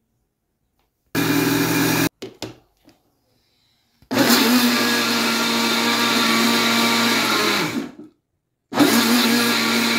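Arno countertop blender mixing a liquid batter of eggs, coconut milk, oil, sugar and salt, run in three pulses: a short one of about a second, a long one of about four seconds that winds down as it stops, and a third starting near the end. Steady motor sound with a constant hum while it runs.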